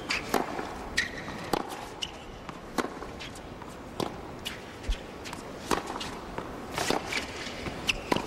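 Tennis rally on a hard court: racquets striking the ball and the ball bouncing, sharp pops every half second to a second or so, with a few short sneaker squeaks.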